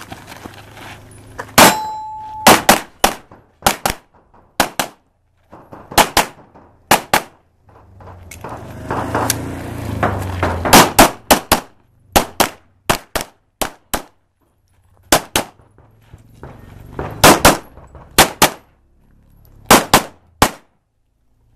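A shot timer's start beep, followed by a string of pistol shots fired mostly in quick pairs and short strings. There are brief pauses between groups, and a longer one of about two seconds in the middle.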